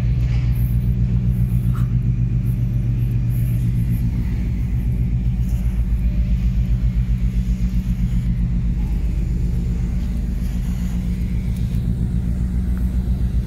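Steady low drone of heavy machinery running, with an even throb.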